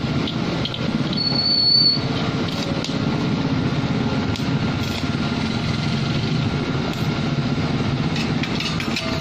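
Arc welding machine switched on, its cooling blower running with a steady low drone. A brief high whistle sounds about a second in, and a few short crackles come near the end.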